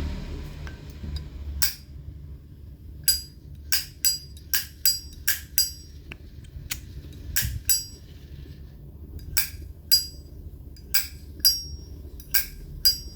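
Brass Zippo lighter's hinged lid being flicked open and snapped shut again and again: sharp metallic clicks, each with a brief ring, coming at irregular intervals.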